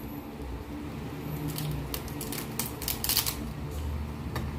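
Cooked crab shell cracking and crackling as it is pulled apart by hand: a cluster of sharp clicks through the middle and a single click near the end.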